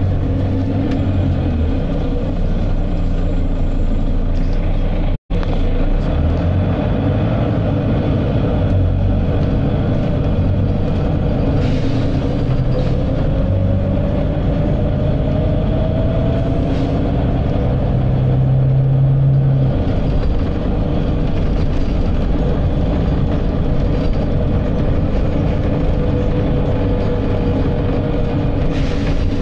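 Volvo B9TL double-decker bus's nine-litre six-cylinder diesel running steadily under way, with a whine that rises in pitch about halfway through. The audio cuts out for an instant about five seconds in.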